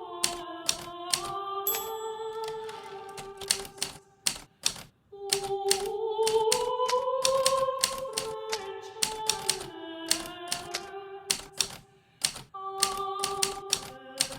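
Hermes Baby portable typewriter keys striking in an uneven typing rhythm, with brief pauses about four seconds in and near the end, over soft background music of slow, held notes.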